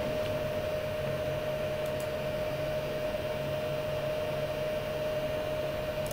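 Steady fan-like hum and hiss with a constant mid-pitched tone underneath, and a faint click about two seconds in.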